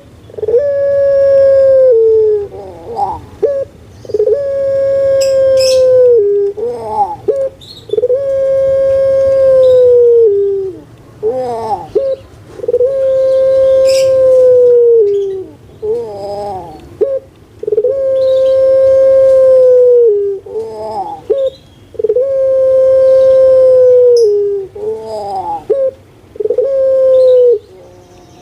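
Puter pelung (Barbary dove) giving its booming song. Seven long, loud coos, each held steady for about two seconds and dropping in pitch at the end, come about every three to four seconds, with short rolling notes between them.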